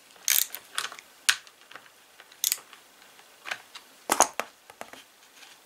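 Scattered clicks and clatter of plastic and chain as the sprocket-cover knob of a small one-handed battery chainsaw is unscrewed and handled; the loudest knock comes about four seconds in.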